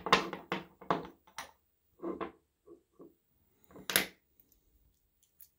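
Small metal lock parts and a screwdriver clicking and knocking as they are handled and set down on a parts tray and wooden table. A cluster of light clicks at the start, a few more after about two seconds, and one sharper click about four seconds in.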